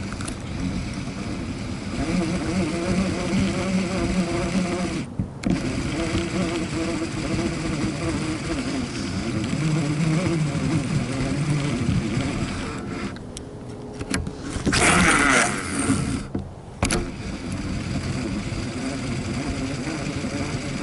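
Trulinoya TS1200 baitcasting reel being cranked, its gears giving a steady whirring hum as line is retrieved. About fifteen seconds in comes a louder, hissing whir that lasts about a second and a half.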